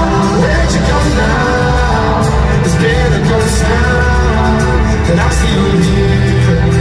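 Live concert music played loud through an arena sound system: a singer's voice over a full band with keyboards, bass and drums, picked up from the stands.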